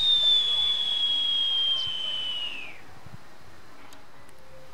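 A single high whistle held for about three seconds, sliding slowly lower and dropping away near the end.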